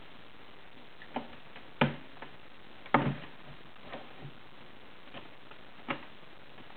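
European badgers, an adult and a cub, crunching food as they eat. It comes as irregular sharp clicks, loudest about three seconds in.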